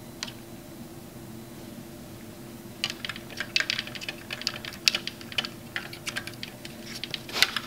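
Quick, irregular small clicks and taps as fingers push film capacitors' leads into the holes of a synth circuit board, starting about three seconds in. A steady low hum runs underneath.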